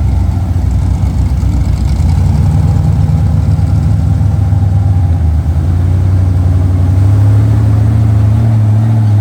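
Off-road rock crawler's engine running loud and close, its pitch shifting up and down as the throttle is worked.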